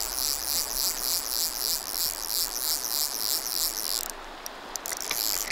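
Fly reel clicking as line is reeled in on a hooked fish, in an even pulse of about three bursts a second that pauses briefly about four seconds in, over the steady rush of a river riffle.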